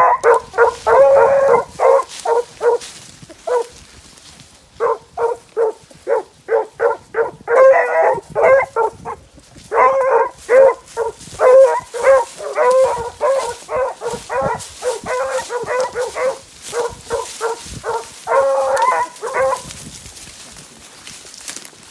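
Two 15-inch male beagles baying in rapid runs of short barks, with a few longer drawn-out bawls mixed in, giving tongue as they trail rabbit scent. The baying stops a couple of seconds before the end as the hounds move off.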